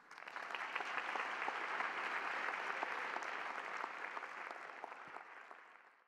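Audience applauding, building up within the first second and fading away near the end.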